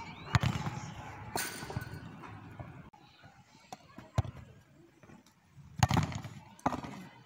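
Football being kicked in bicycle-kick attempts: sharp thuds of the ball being struck and the player landing on artificial turf, loudest near the start and again about six seconds in, with lighter juggling taps between. About a second and a half in there is a brief rattling crash.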